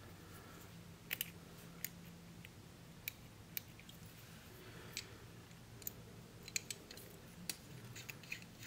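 Stainless steel Parker Jotter mechanical pencil being clicked and handled: a dozen or so short, sharp metal clicks at irregular intervals, starting about a second in.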